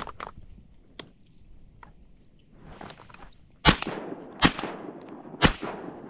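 Three shotgun shots in quick succession, under a second apart and then about a second apart, each with a short echoing tail.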